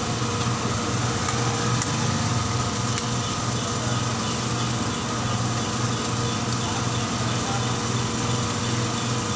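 A steady engine-like drone under a continuous even hiss, with puris deep-frying in a large karahi of hot oil.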